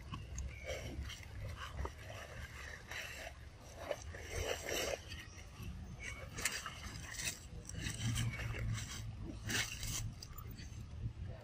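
Outdoor ambience with a low steady rumble and scattered short rustles and scrapes, like movement in dry leaves, the clearest about four and a half, six and a half, seven and nine and a half seconds in.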